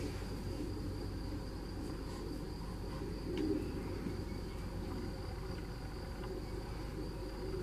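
Cricket chirping in a continuous, steady high-pitched trill over a low, even outdoor rumble.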